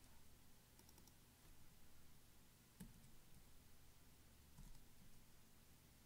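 A few faint clicks of a computer keyboard and mouse as values are typed into fields, over near-silent room tone.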